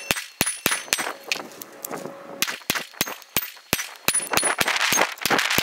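Glock 23 pistol firing a rapid string of handloaded .40 S&W rounds primed with small rifle primers, about three shots a second with a short pause near the middle, every round firing. Some hits ring the hanging steel targets.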